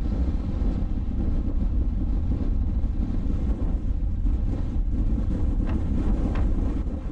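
Strong wind blowing across the microphone: a loud, steady low rumble with no let-up.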